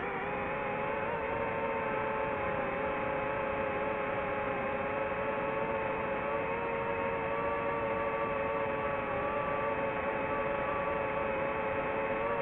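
DJI FPV drone's motors and propellers whining steadily in flight, a few close steady tones over a rushing hiss of air.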